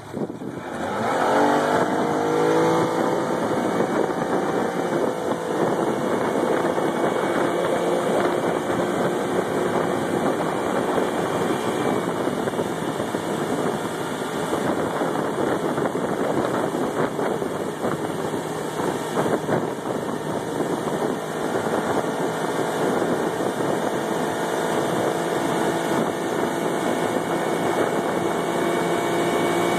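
Motorboat engine opening up about a second in, its pitch swinging and then settling, then running steadily at towing speed, with the rush of the wake beneath it.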